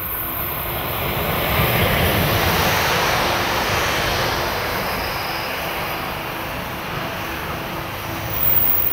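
SBB Re 6/6 electric locomotive hauling a freight train past: a broad rush of rolling and running noise that swells to a peak about two seconds in, then slowly fades.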